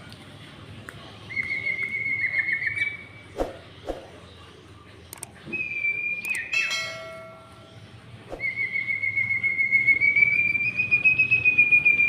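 Sirtu songbirds singing long, rapidly trilled whistled phrases, three of them, the last the longest and slowly rising in pitch. A brief harsh, buzzy note cuts in midway, and a few soft knocks come between phrases.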